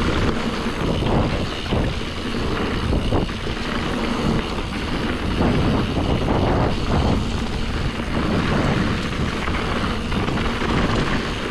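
Mountain bike riding fast down a dirt enduro trail: wind buffeting the microphone over the rolling of the tyres, with frequent knocks and rattles from the bike.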